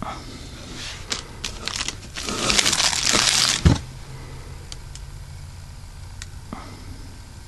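Plastic wrapping crinkling as it is handled: a few crackles about a second in, then a louder stretch of crinkling from about two seconds in that stops abruptly just before four seconds.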